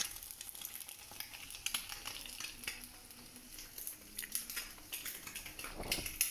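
An egg frying in a pan, sizzling steadily with many small crackles. A brief louder bump comes near the end.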